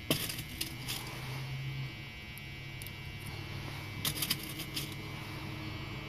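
Light metallic clicks as small top pins are set into the pin chambers of an ASSA Twin 6000 lock cylinder: a few single ticks and a quick cluster of clicks about four seconds in, over a steady low hum.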